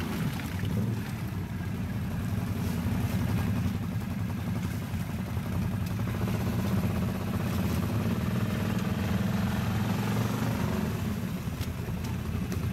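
Can-Am ATV engine running steadily at low throttle while the quad sits bogged in deep mud.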